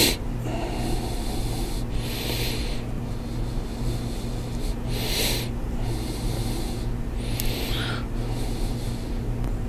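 A person breathing out through the nose close to the microphone, three breaths about two and a half seconds apart, over a steady low hum.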